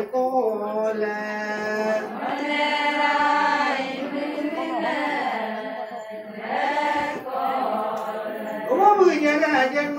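Voices chanting a ponung song, the Adi sung dance: long held notes that slide slowly in pitch, sung in unbroken phrases.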